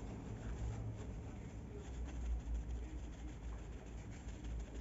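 Faint rustle of a paper tissue rubbed against the lips to wipe off lipstick, with a few small handling ticks over a low steady hum.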